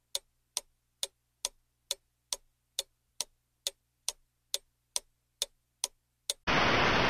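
Clock ticking steadily, about two evenly spaced ticks a second. Near the end the ticking stops and a louder steady sound cuts in.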